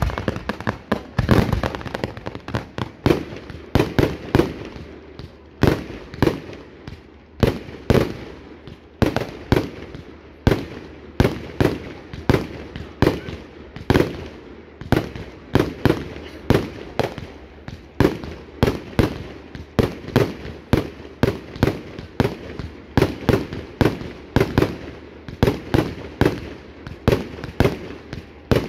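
Fireworks going off in a rapid, irregular series of sharp bangs, about two or three a second, each trailing off briefly.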